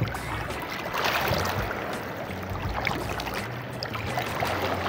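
Small waves lapping and sloshing at the water's edge close to the microphone, a steady watery wash.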